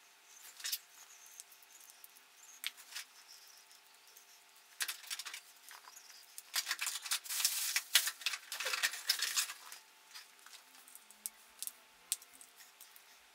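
Small clicks, taps and rustles of a 1999 Johnson 9.9 two-stroke outboard's carburetor body and its loose parts being handled and set down on a cloth-covered table. The clicks are scattered at first and come thick and fast from about five to ten seconds in.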